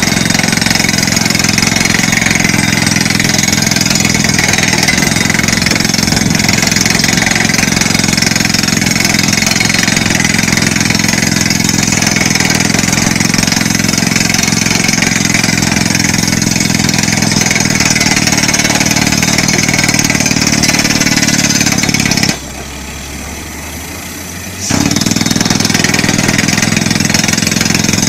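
Pneumatic crawler rock drill drilling into rock, a loud, steady clattering din of the drill and its compressed air. About 22 seconds in the drilling noise cuts out, leaving a quieter low hum for about two seconds, then it starts again.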